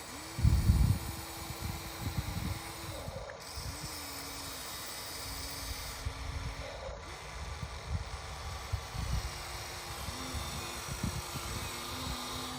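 RC excavator's motor whining, its pitch dropping and stepping back up several times as the machine moves, with irregular clunks and scrapes of the digging. The loudest thump comes about half a second in.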